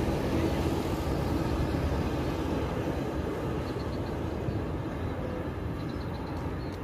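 Airbus A330 jet airliner landing, its engines making a steady rushing noise that slowly fades as it moves away.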